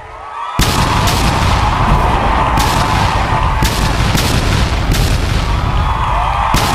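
Aerial fireworks bursting overhead: a rapid run of loud bangs over continuous booming and crackle. It starts abruptly about half a second in.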